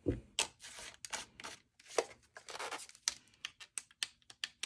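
A plastic lightstick and its parts handled by hand: a string of light plastic clicks, taps and rustles, coming as rapid small clicks in the second half.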